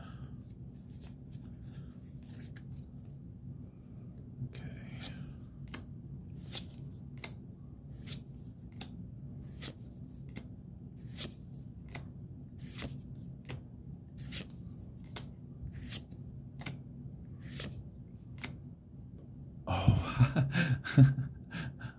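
Pokémon trading cards being handled and flipped through one at a time: a soft card click or flick about every half second to second, over a low steady hum. There is a louder burst of handling noise near the end.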